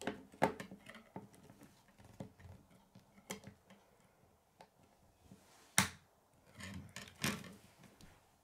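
K'nex plastic rods and connectors clicking and snapping as they are pushed together by hand: an irregular series of short, sharp clicks, the loudest about six seconds in, with a small knock near the end as the model is set down on the wooden table.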